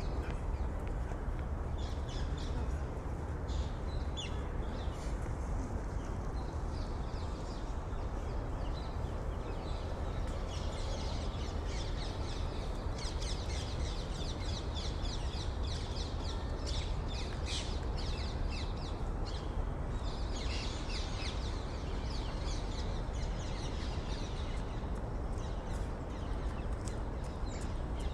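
City park ambience: many small birds chirping in quick short calls, thickest in the middle, over a steady low city hum.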